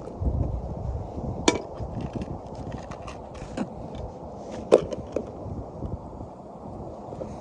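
Hands working fishing tackle while re-tying the line: light rustling and ticking, with two sharp clicks about a second and a half in and near the middle. Low wind rumble on the microphone underneath.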